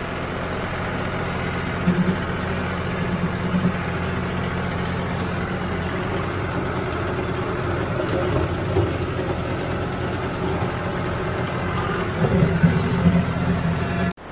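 John Deere compact tractor's diesel engine running steadily under load while it pulls a rotary cutter mowing grass and brush on a trail. There are a few louder rattling moments about two seconds in and again near the end.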